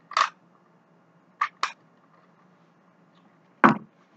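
Orange soda sipped through a straw from a paper fast-food cup: a short slurp, then two quick sips about a second and a half in. Near the end, a sharp knock, the loudest sound, as the cup is set down on the table.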